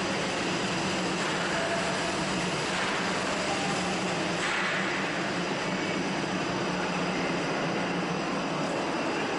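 Steady running noise of a vehicle: a constant low hum under an even hiss.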